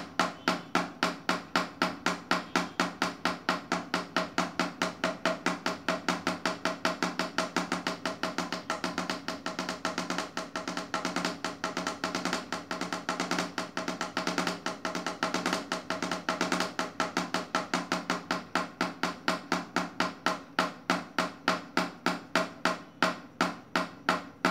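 Wooden drumsticks tapping on a pad board of eight black pads, playing the alternating LRLL RRLL sticking exercise in an even stream of strokes. The strokes speed up to a fast roll in the middle and slow down again near the end.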